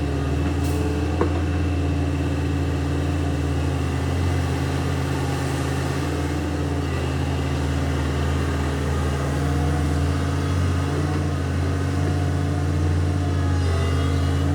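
Heavy construction machine's diesel engine running steadily at an even speed, with no revving.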